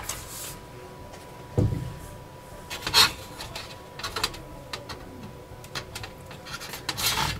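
An aluminium LED grow-light bar rubbing and scraping against a glass shelf and cabinet frame as it is handled into place, with a few sudden knocks and clicks: a dull knock about a second and a half in, a sharp click about three seconds in, and another near the end.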